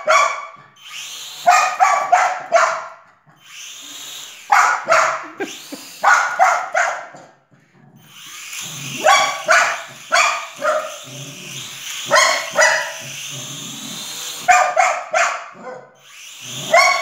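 A dog barking in repeated quick bursts of several barks, every two seconds or so, at a toy quadcopter drone: alarm barking at an unfamiliar object.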